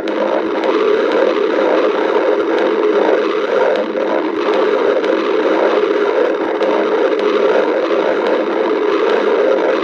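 Human stomach growling: a steady, unbroken rumble from the gut of a hungry person.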